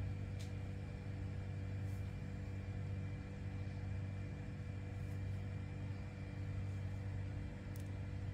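A steady low hum with a faint steady high tone above it and a few faint ticks.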